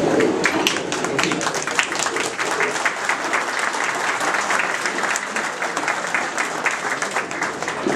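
A roomful of people applauding, many hands clapping at once at a steady level.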